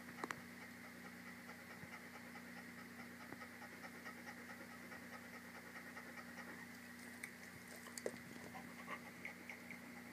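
Pregnant black Labrador retriever, 60 days into her pregnancy, panting steadily. A couple of brief sharp clicks stand out, just after the start and about eight seconds in.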